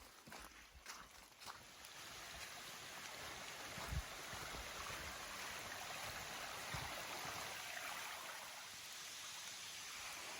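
Faint, steady rush of flowing brook water near a waterfall, with a few footsteps in the first second or two.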